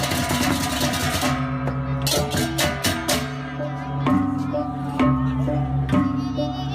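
Music with percussion: fast, dense metallic strikes for about the first second, then sparser struck notes over held low tones.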